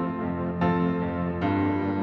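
Soft background music with gentle sustained chords, changing chord twice.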